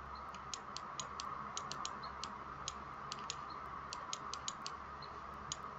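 Irregular light clicks and taps, about twenty spread unevenly, from drawing a diagram on a computer or tablet, over a faint steady hum.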